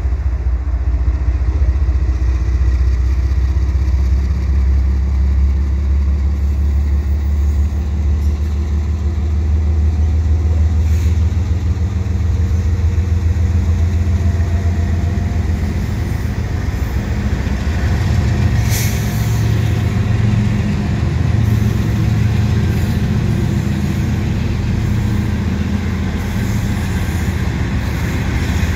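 Canadian Pacific GE diesel-electric freight locomotives passing slowly as the train pulls out, their engines running with a steady low rumble. The drone steps up in pitch about halfway through, and there is one short high hiss about two-thirds of the way through.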